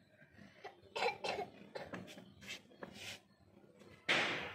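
A person coughs or clears their throat about a second in, with small handling clicks. Near the end comes the loudest event, a short sharp burst of noise that fades within half a second.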